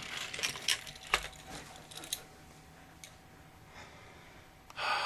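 Sharp clicks and light knocks of a metal CPU water block and its fittings being handled, thickest in the first two seconds and sparse after that, with a short breathy rush of noise just before the end.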